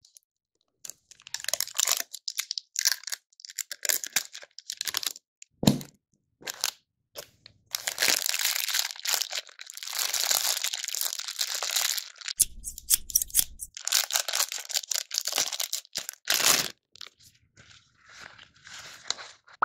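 Clear plastic wrapping crinkling and tearing as it is pulled open by hand, in irregular bursts with a longer stretch of steady crinkling in the middle. A single sharp tap about six seconds in.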